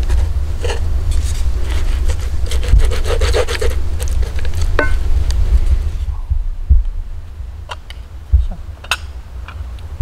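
A wooden spatula scraping and stirring through food in a cast-iron skillet, a run of quick rasping strokes over a steady low rumble. About six seconds in the scraping stops, leaving a few light clicks and taps.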